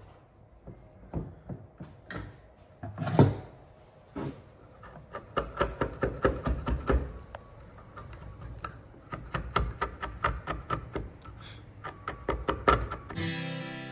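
Light knocks on wood in quick runs of several taps a second, with one louder knock about three seconds in: a dovetail joint being tapped into and out of its socket. Music starts near the end.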